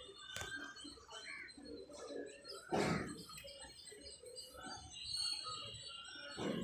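Birds chirping in the background. A short, louder noise comes about three seconds in as a muddy clump of plant is pulled out of a water-filled lotus tub, and a smaller one follows near the end.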